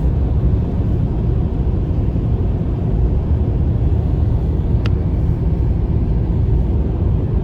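Steady low road and engine rumble of a car driving at highway speed, heard from inside the cabin, with one short tick about five seconds in.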